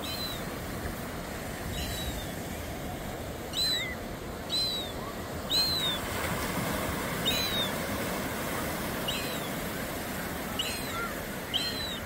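Surf breaking and washing against a rock jetty, a steady rush of water. Over it a bird repeats short, high, arched calls, about nine times, every one to two seconds.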